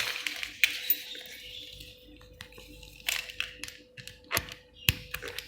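Scattered small clicks and knocks of hands handling fiber optic cable connectors and a laser test light while moving on to test the next cable, with a few sharper clicks in the second half.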